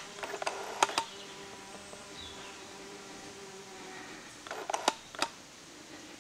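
Footsteps and small knocks on bare, debris-strewn wooden floorboards: a couple of sharp clicks about a second in and a cluster of knocks near the end, over a faint steady hum.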